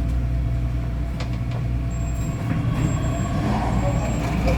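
Inside a Ui-Sinseol Line light rail car: the train gives a steady low rumble, with a few sharp clicks about a second in and a thin, broken high tone from about two seconds in.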